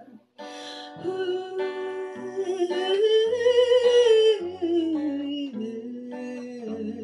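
A woman singing a wordless, humming-like melody over a strummed acoustic guitar in a live performance. The voice glides up and holds high about halfway through, then falls back, after a brief break just at the start.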